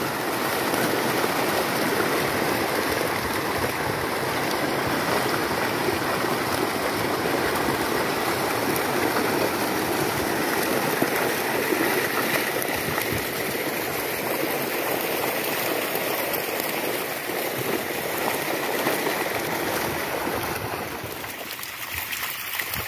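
Steady churning and splashing water as a crowded catch of milkfish thrashes in the shallows against a seine net. It eases a little near the end.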